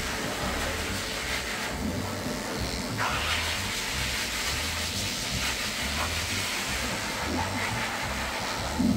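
Electric dog clipper running steadily as it shears through a matted, curly coat, with background music.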